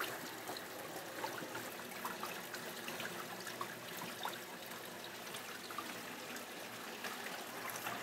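Steady trickle of running water, with scattered faint light clicks.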